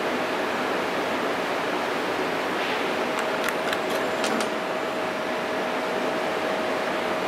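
Steady hiss of a cooling fan running with a faint constant tone, and a few light clicks about three to four and a half seconds in.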